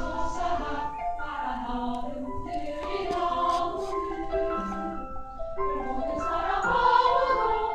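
Women's choir singing in harmony, with held notes changing in steps.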